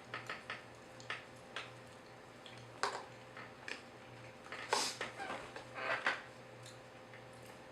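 Eating sounds: a fork clicking against a bowl of ramen noodles, chewing, and a few short, sharp breaths through the nose.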